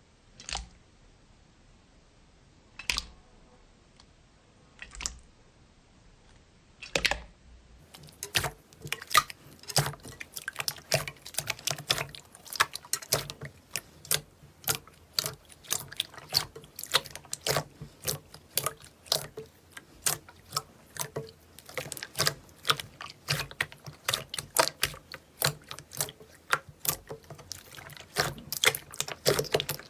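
Slime being handled by hand: a few separate wet squelches in the first seconds, then, from about eight seconds in, a fast run of sticky clicks and pops as it is squeezed and poked.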